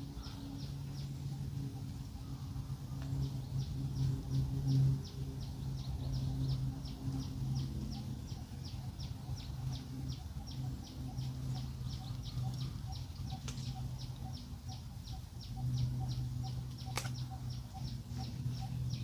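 Outdoor ambience: a steady low hum with an even, high ticking about three times a second, and one sharp click near the end.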